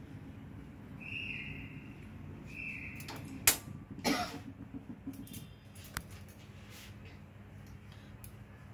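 Steady low background hum, with two short high chirps about a second in and again near three seconds, and two sharp knocks about halfway through.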